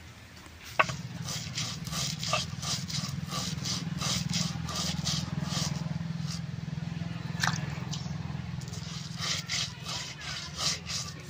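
Soaked rice and red lentils being crushed under a cylindrical grinding roller rocked back and forth on a wooden board: a steady low rumble with rhythmic scraping strokes, several a second. It starts with a knock about a second in, and there is a sharp click about two-thirds of the way through.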